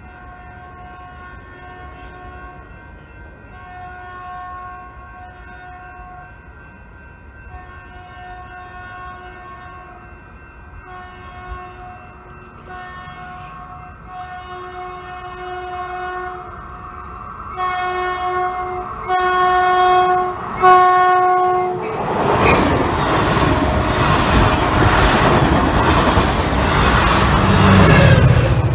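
Caltrain diesel locomotive's horn sounding a run of blasts, longer ones first and then shorter ones in quick succession, growing louder as the train approaches. About three-quarters of the way through, the locomotive comes by close with a loud rush of engine and wheel noise.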